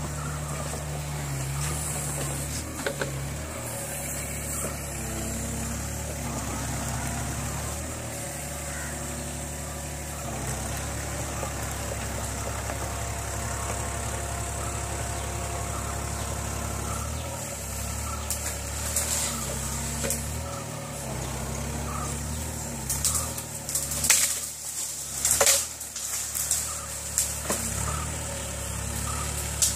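Hitachi mini excavator's diesel engine running steadily, its note shifting as the hydraulics work the boom and bucket. About three quarters of the way through comes a run of sharp cracks and snaps as the bucket tears through brush and branches.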